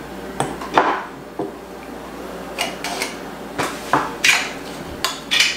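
A series of small clinks, taps and knocks: pieces of tea light candle wax being dropped into a small glass jar, with the emptied aluminium tea light cups handled on a tabletop.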